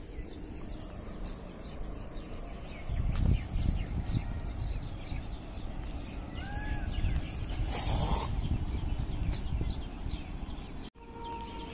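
Small birds chirping, with a low rumble on the microphone through the middle and a short noisy rustle about eight seconds in. The sound drops out for an instant near the end.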